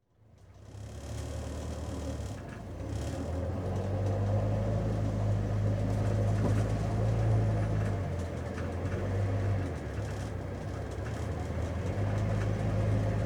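Inside a moving taxi: steady low engine drone with road noise, fading in over the first second. The engine note shifts a few times as the car drives on.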